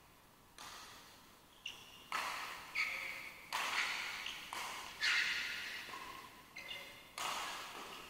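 Badminton rally: rackets striking a shuttlecock, a sharp smack about once a second, each ringing on in the echo of a large hall.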